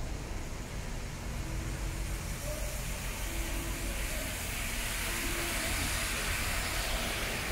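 Traffic on a wet road: a low rumble of double-decker buses and cars driving by, with the hiss of tyres on wet asphalt growing louder from about four seconds in as a bus passes close.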